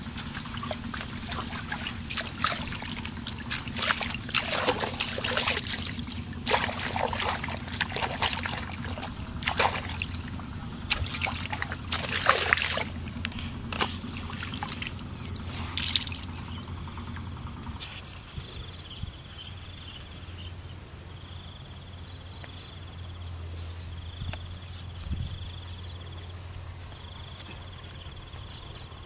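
Water sloshing and dripping as a wet cloth is lifted and handled in waist-deep muddy water, in irregular splashes through roughly the first two-thirds. After that it is quieter, with short high chirps now and then over a low steady hum.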